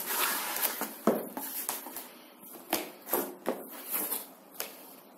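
Cardboard box being opened and handled by hand: rustling and scraping of the cardboard lid and packaging, with several sharp taps and knocks, the strongest about a second in.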